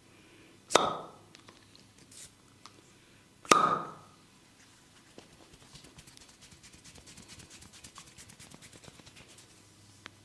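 A massaging barber's hands striking the client: two loud, sharp slaps about three seconds apart, each with a short hollow ring. They are followed by a few seconds of fast, light tapping.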